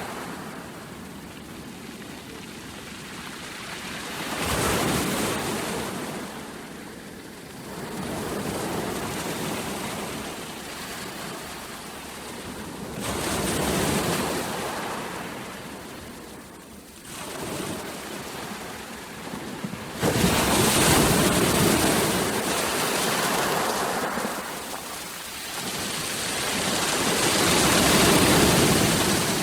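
Sea waves breaking and washing up a shore, swelling and ebbing every few seconds, with a sudden louder surge about twenty seconds in.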